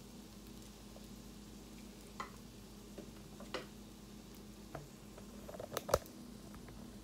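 Food frying faintly on an electric griddle over a steady low hum, with scattered light clicks and taps of a utensil, the loudest about six seconds in.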